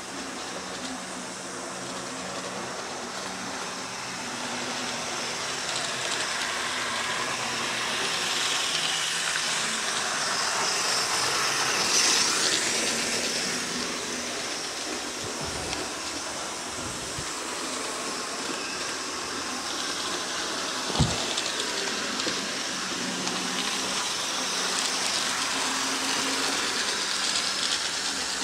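Several HO-scale model trains running at once on a track layout: a steady whir of small electric motors and wheels rolling on the rails, swelling and fading slightly as locomotives pass. A single sharp knock comes about two-thirds of the way through, with a few softer thumps shortly before it.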